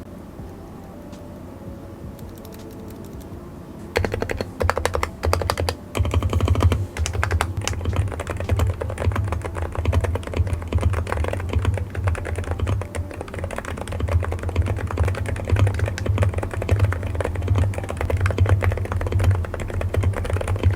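Mechanical keyboard being typed on fast and continuously, starting about four seconds in, each keystroke with a deep low note.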